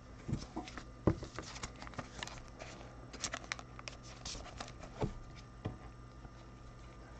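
Sleeved trading cards being handled by gloved hands: faint scattered clicks and short rustles of card and plastic sleeve as cards are shifted and set down, with a sharper tap about a second in.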